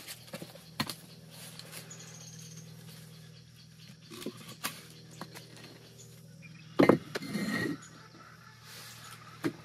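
Concrete pad being worked into place under a building: light clicks, then a sharp knock about seven seconds in followed by about a second of scraping.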